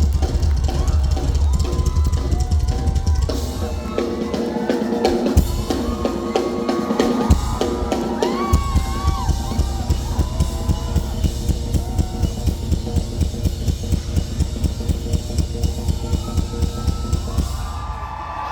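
Rock drum kit played live at concert volume. It opens with fast, dense bass drum strokes, then settles into a regular pattern of drum hits.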